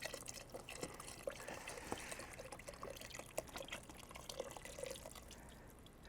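Beef broth pouring from a carton into a soup pot: a faint liquid trickle and splash with small drips.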